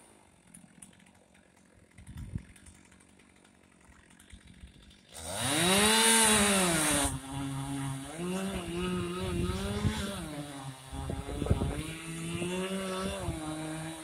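Chainsaw, quiet for the first five seconds, then revving up loud and running on while cutting into the base of an aspen trunk, its pitch sagging and recovering under load.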